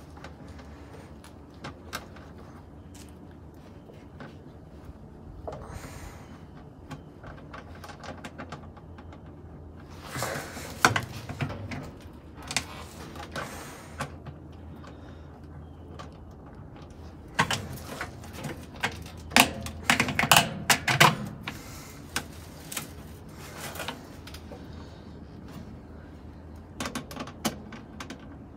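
Metal and plastic parts knocking and clattering as a tool works inside a washing machine cabinet during disassembly. Scattered sharp clicks give way to louder bursts of clattering about a third of the way in and again through the middle.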